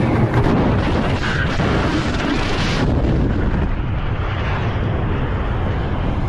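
Loud roar of rushing air as a pilot ejects from a jet, wind blasting the camera. About three seconds in the high hiss drops away and a heavy low rumble carries on.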